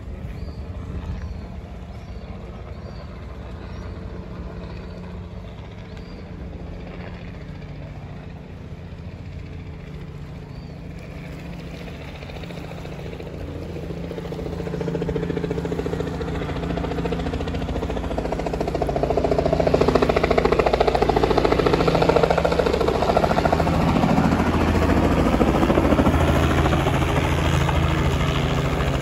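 A steady engine hum that grows louder about halfway through and stays loud until near the end.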